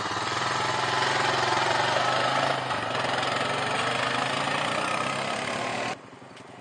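ATV (four-wheeler) engine running at low speed, a steady hum as it carries two riders. It cuts off suddenly near the end.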